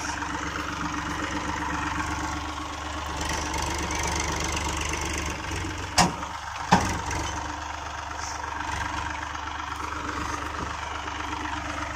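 Massey Ferguson 245 DI tractor's three-cylinder diesel engine running steadily under load, pulling a heavily loaded trolley. Two sharp knocks come about six seconds in, less than a second apart.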